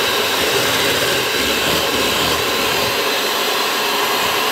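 Kenwood electric hand mixer running steadily at speed, its beaters whisking eggs to a froth in a stainless steel bowl.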